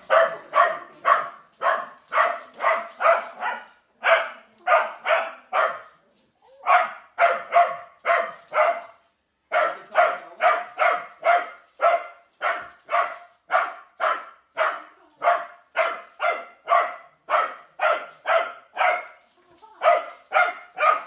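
Corgi barking rapidly and repeatedly at a moving robot vacuum, a little over two barks a second, in bouts with brief pauses.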